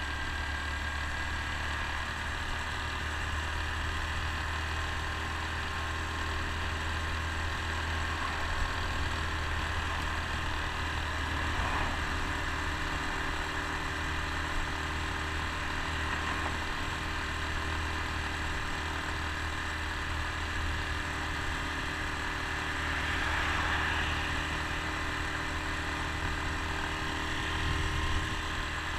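Honda Super Cub C125's single-cylinder four-stroke engine running steadily while riding, with a constant low rumble of wind and road noise, and a slight rise in engine sound about two-thirds of the way through.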